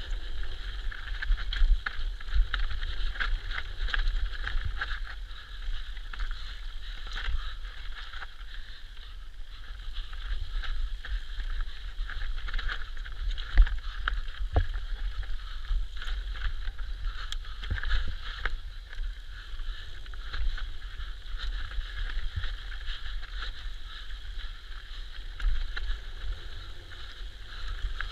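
Electric mountain bike descending a dirt trail at speed: steady wind rumble on the mounted camera's microphone, with the bike rattling and clattering over the bumpy ground and sharp knocks from hits, the hardest about halfway through.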